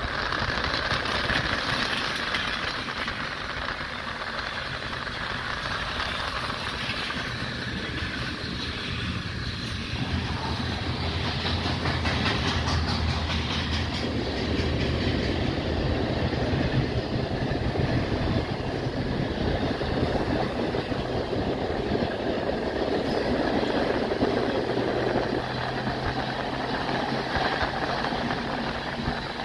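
Cars of a Union Pacific manifest freight train rolling past on the rails, a steady rolling noise throughout.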